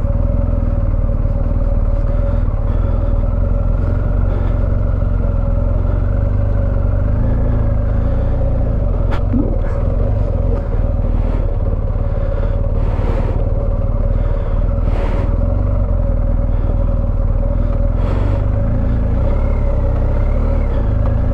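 BMW R 1250 GS Rallye's boxer-twin engine running steadily as the motorcycle rides slowly along a boggy dirt track on road tyres, with a few short clicks and knocks scattered through.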